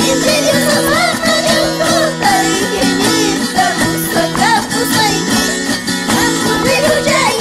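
Live Andean carnival music: voices singing over a strummed small guitar, with held tones from long wooden flutes and drum strokes, played by a dancing group.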